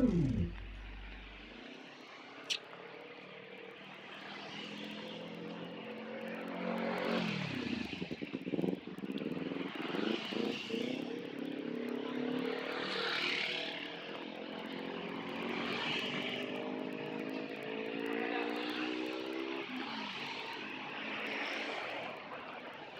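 Road traffic: motorcycles and cars passing close by, their engines swelling and fading one after another. One engine note drops in pitch as it goes past about 7 seconds in, and another rises slowly through the middle.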